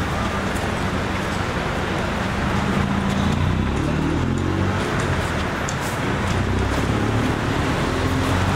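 City street traffic: steady road noise with vehicle engines running, a low engine hum growing stronger from about three seconds in.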